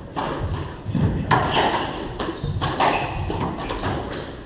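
A squash rally: the ball smacks hard off the rackets and the court walls about once a second, with short high squeaks of court shoes on the wooden floor.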